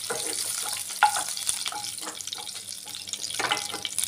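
Oil sizzling in a non-stick kadai with cumin and fenugreek seeds frying in it, while a wooden spatula scrapes and knocks against the pan, with the sharpest knock about a second in.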